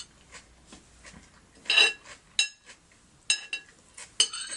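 Metal cutlery clinking against a plate while eating, a few sharp clinks that each ring briefly, the loudest about two seconds in.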